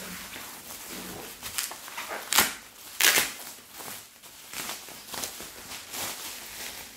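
Plastic bubble-wrap packaging crinkling and rustling as it is handled and pressed, with two louder crackles about two and a half and three seconds in.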